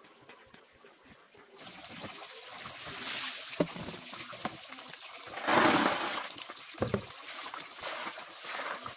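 Water poured from a plastic scoop splashing into plastic basins, with hands swishing and rattling snails in a basin of water. It starts after about a second and a half, with the loudest pour and splash about halfway through and a few sharp clacks of shells.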